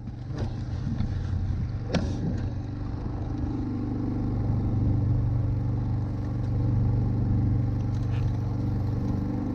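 A small engine running steadily with an even low hum. A couple of sharp clicks come in the first two seconds.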